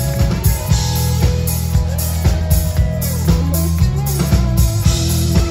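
Live disco-pop band playing a passage without vocals: a drum kit keeps a steady beat under a heavy bass guitar line and electric guitar.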